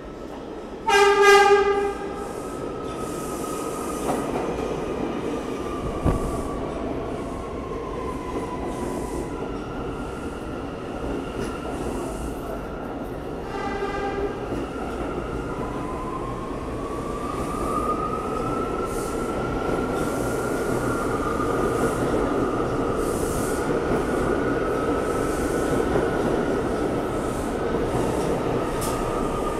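New York City subway train sounding its horn: one loud blast about a second in and a shorter, fainter one around fourteen seconds in. Between and after the blasts, train noise rumbles through the station with wheel squeal gliding up and down, the rumble growing louder in the second half.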